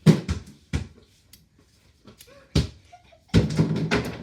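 Basketball being dribbled on a hard floor indoors: a few sharp bounces at uneven spacing, then a longer stretch of denser clattering noise near the end.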